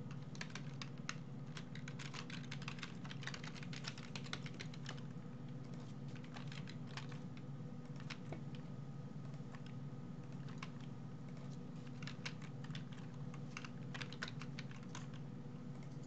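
Typing on a computer keyboard: bursts of quick keystrokes with short pauses between them, over a low steady hum.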